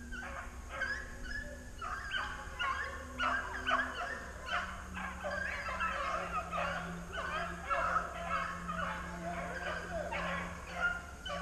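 A pack of rabbit hounds bays in full cry while trailing a rabbit. Many short, overlapping bays come two or three a second without a break.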